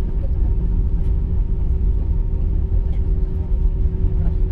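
Cabin noise inside an Airbus A319 taxiing after landing: a steady low rumble from the engines at idle and the airframe rolling, with a faint steady hum over it.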